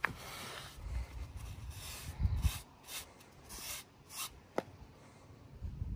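Paper towel rubbing and wiping along the seam-sealed edge of a plastic film rear window on a convertible soft top, in short irregular strokes. A sharp click comes about four and a half seconds in, and a dull thump a little past two seconds.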